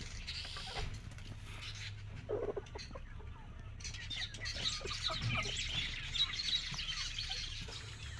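Chickens clucking, with many quick high chirps crowding in over the second half.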